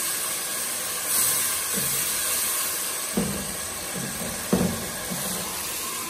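Chicken in tomato sauce sizzling in a cooking pot, a steady hiss, with a few soft knocks about three and four and a half seconds in.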